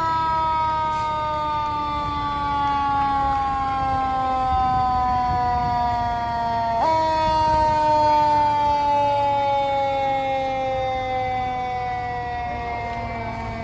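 Fire truck siren sounding a long, slowly falling tone. About seven seconds in its pitch jumps back up, then falls slowly again.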